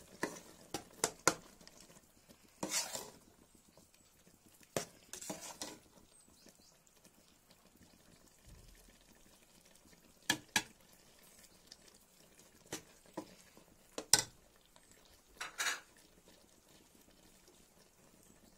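Slotted metal ladle clinking and scraping against an aluminium pot as a thick tomato gravy is stirred: scattered sharp clinks and a few short scrapes. Between the strokes the simmering sauce bubbles faintly.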